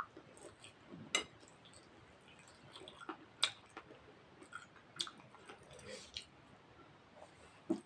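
Close-up chewing and wet mouth sounds of a person eating rice and mutton curry, with a few sharp clicks spread through.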